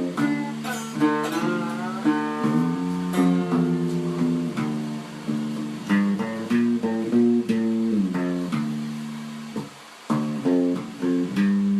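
Guitar playing a tune of plucked notes and chords, with a few sliding notes about one to three seconds in and a brief drop in level near the end.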